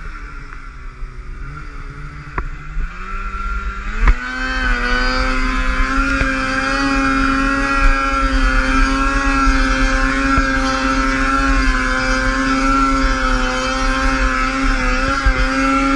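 2016 Polaris Axys 800 Pro RMK snowmobile's two-stroke twin engine, quiet and low for the first few seconds, then revving up about three seconds in and held at high, steady revs from about four seconds on as the sled climbs a slope in deep powder.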